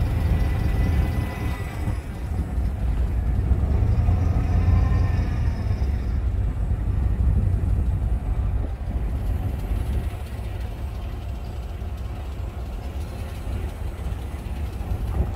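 Vehicle rolling slowly along a street: a steady low rumble of engine and road noise, a little quieter from about ten seconds in.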